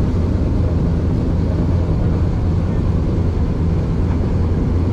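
Small sightseeing boat's engine running at steady speed, a constant low drone, with the rush of its churning wake.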